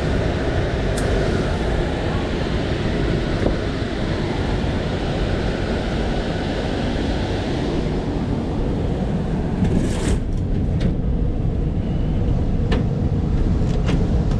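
Air-conditioning system running steadily, the indoor blower and then the Goodman R-22 outdoor condenser unit with its compressor and fan, with a few sharp clicks about ten seconds in and again near the end.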